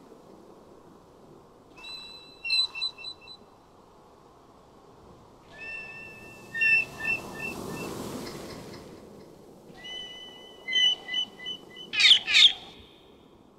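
Bird-like chirping: three short runs of quick repeated high notes a few seconds apart, then a fast warbling trill near the end. A soft rushing swell rises and fades under the middle.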